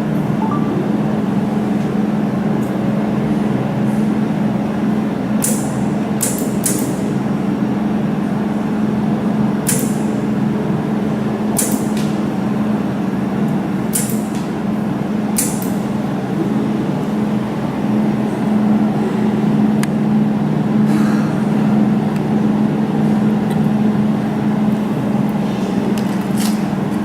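Jewelry laser welding machine running with a steady low hum, with about nine sharp clicks at irregular intervals of a second or more, each a single laser pulse spot-welding silver.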